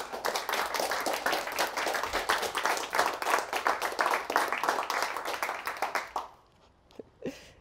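Audience applause, a dense patter of hand claps that fades out about six seconds in.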